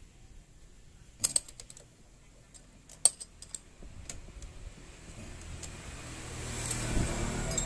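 Sharp metal clicks and clinks of a wrench and screwdriver working the valve adjuster screw and locknut on a Yamaha Mio's cylinder head while the valve clearance is set; the loudest click comes about three seconds in. Over the last few seconds a low rumble swells and fades.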